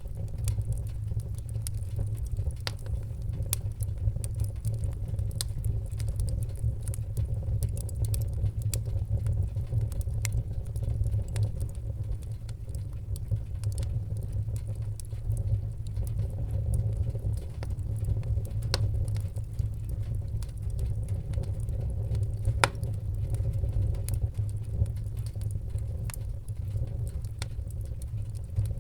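Fire burning: a steady low roar with irregular sharp crackles and pops scattered throughout.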